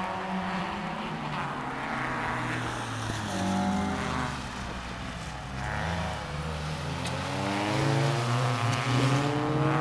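Race car engines running on a circuit, one car accelerating, its engine pitch rising through the gears.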